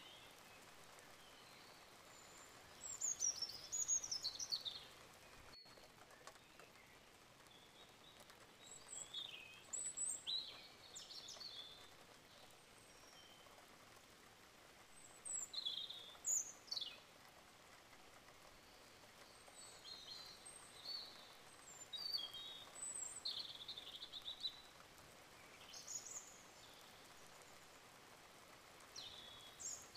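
Small birds chirping and singing: short high calls and quick downward-sliding whistles every second or two, over a faint steady hiss.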